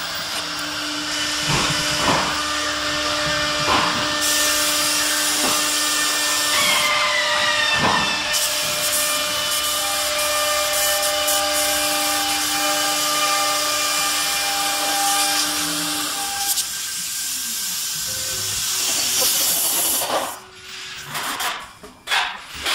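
CNC router spindle milling a wooden cabinet door panel: a steady whine over the hiss of the cutter, with a few short knocks. The whine stops about 16 seconds in, and near the end the sound turns choppy and uneven.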